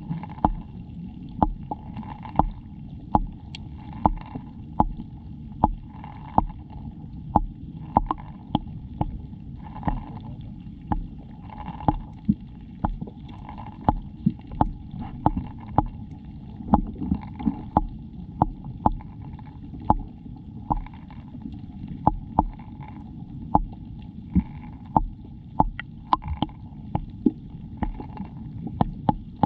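Underwater sound of a rock pool: a steady, muffled low rumble of moving water with sharp clicks and ticks, about two a second, irregular.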